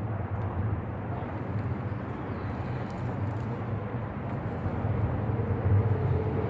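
1978 Garelli moped's small two-stroke engine running steadily, now running after its clogged carburetor was cleaned.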